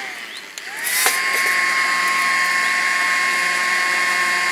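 Battery-powered beekeeping smoker's fan motor whining. Its pitch falls as it winds down at the start, then about a second in there is a click and it spins back up to a steady high whine.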